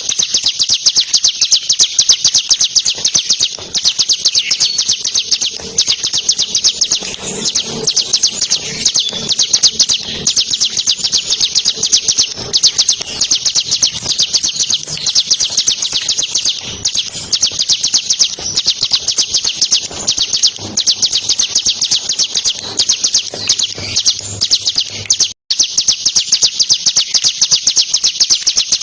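Bar-winged prinia (ciblek) singing a fast, unbroken rattling trill of high, sharp notes, repeated many times a second. The song cuts out for an instant about 25 seconds in, then carries on.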